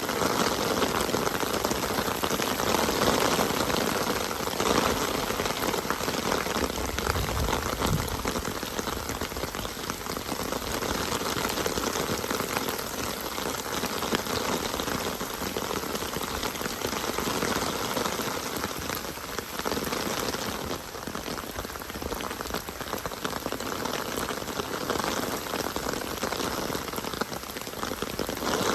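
Steady rain falling, a dense patter of drops on surfaces.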